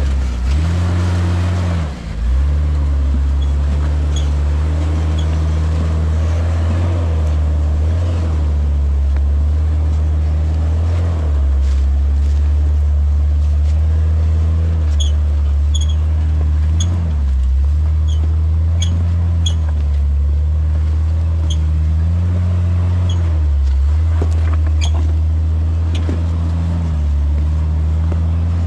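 Jeep Wrangler engine running at low revs while crawling off-road, its pitch dipping briefly about two seconds in and rising and falling slightly with the throttle. A scatter of short high squeaks comes in the second half.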